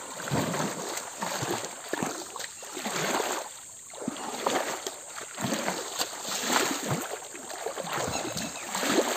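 Shallow muddy pool water splashing and sloshing in irregular surges as people wade in it and churn it with their hands while groping for fish.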